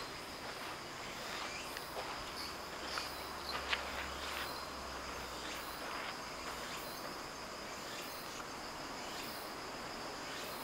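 Insects chirping steadily in one thin high tone, with a few footsteps in the first few seconds.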